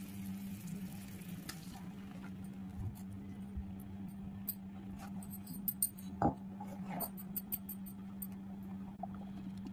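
Sugar syrup bubbling with a soft hiss in a stainless steel pan for the first couple of seconds. Then grape juice in the pan is stirred with a silicone spatula, with light clicks and a few knocks against the steel, over a steady low hum.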